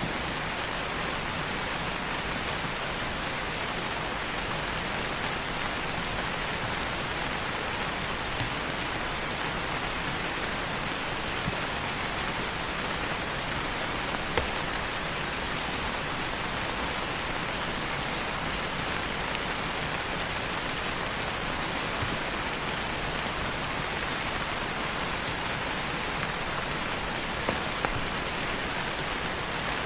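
Steady rain falling on leaves, an even hiss with occasional single louder drips.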